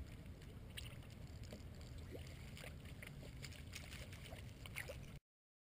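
Water lapping against a fishing boat's hull: small irregular splashes and ticks over a low steady rumble. The sound cuts off suddenly near the end.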